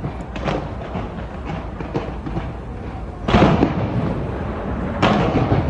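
Fireworks bursting: a boom about half a second in, the loudest one a little past three seconds, and another near the end, with rumbling and crackling between.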